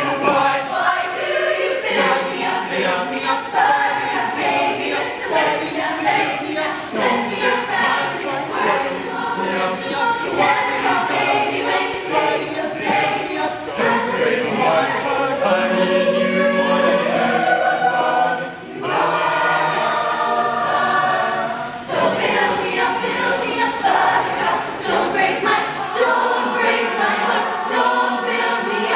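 A mixed show choir of young men and women singing together into stage microphones, a continuous up-tempo group vocal.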